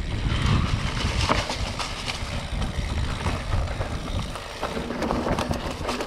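Mountain bike rolling fast down a dirt singletrack: tyres rumbling over the ground, with the bike rattling and knocking over bumps.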